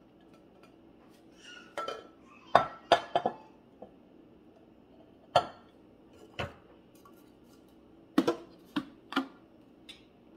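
Kitchenware clatter: a glass bowl and utensils knocking and clinking against the Thermomix TM6's mixing-bowl lid as chopped zucchini is tipped in and the measuring cup handled. The sharp knocks and clinks come in short clusters, the loudest a few seconds in.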